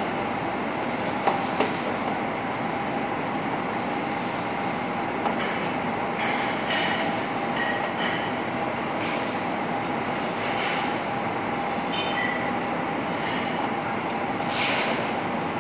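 Steady roar of a commercial kitchen around a charcoal grill, with a constant hum running through it and a few short, light metallic clinks.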